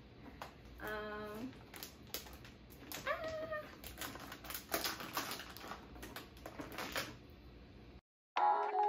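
Cardboard and plastic packaging of a motherboard box being opened by hand: irregular clicks, taps and rustles, with two short voiced sounds about one and three seconds in. The sound cuts off near the end and background music with a held tone comes in.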